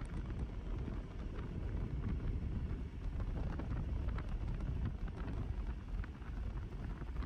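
Gusty wind blowing across the microphone, a steady low buffeting noise.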